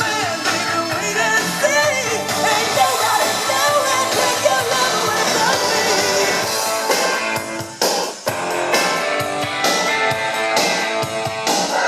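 A rock song playing from a vinyl record on a Technics SL-QD22 turntable: a singer over guitar and band for the first few seconds, then, after a brief break near the middle, a rhythmic guitar-and-drum passage.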